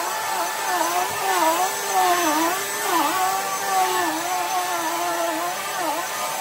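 Vacuum cleaner running, its motor tone dipping in pitch and rising again about once a second.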